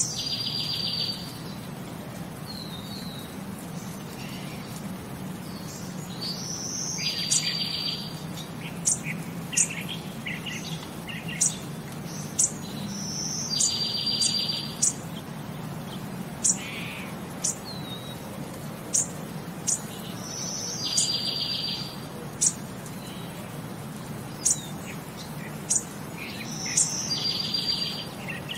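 Birds singing: a rapid one-second trill repeats about every seven seconds, with short high chirps in between.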